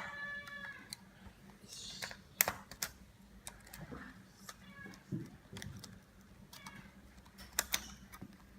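Scattered light clicks and taps of plastic and metal parts as a car dashboard display unit is pried and stripped apart by hand. A cat meows briefly at the very start.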